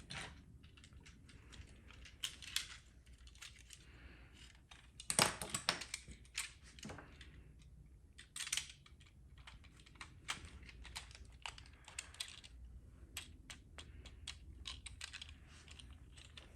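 Plastic parts of a take-apart toy truck clicking and clattering as it is put back together, in many light irregular clicks. A denser, louder run of rattling comes about five seconds in, with another short burst a few seconds later.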